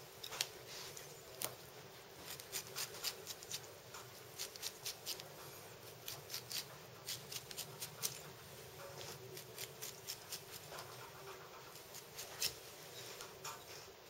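Handmade stainless-steel pineapple eye remover cutting diagonal grooves through the peeled fruit to take out the rows of eyes: a run of quick, irregular small clicks as the blade cuts the flesh and strips come away.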